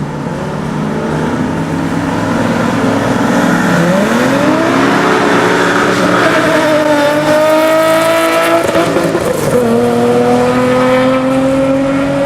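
Car engine under hard acceleration, its pitch climbing steadily and dropping at upshifts about seven and nine and a half seconds in, as the car pulls away.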